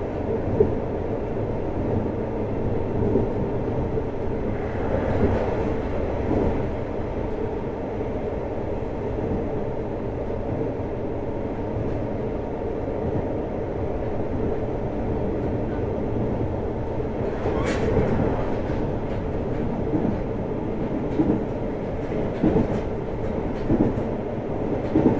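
JR Hokkaido 733 series electric multiple unit running at speed, heard from inside the motor car: a steady rumble of wheels on rail with a few sharp clicks from rail joints.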